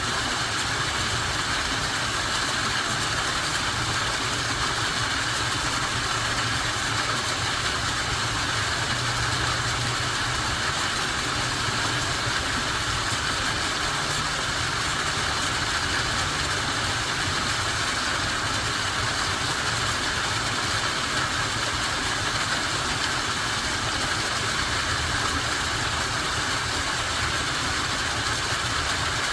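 Waterfall: a steady rush of falling water, with a low rumble underneath.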